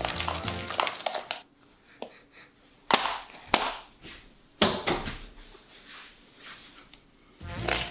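A spoon knocking and scraping in a mixing bowl of cookie dough: a few sharp knocks, the loudest about three and four and a half seconds in, between stretches of background music that stops after a second or so and comes back near the end.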